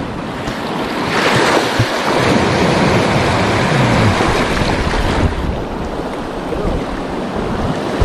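Sea waves washing against a rocky shore, swelling about a second in, with wind buffeting the microphone.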